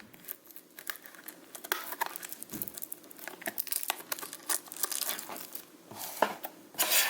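Packaging of a trading-card box being torn open and handled: irregular crinkling and small crackles, with a louder burst of crinkling near the end.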